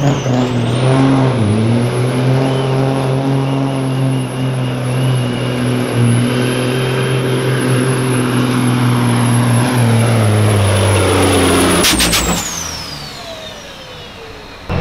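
A semi truck's diesel engine pulling under full load, held at steady high revs with a high turbo whistle over it. About twelve seconds in the full-load sound breaks off, and a quieter high whine falls in pitch as the engine comes off power.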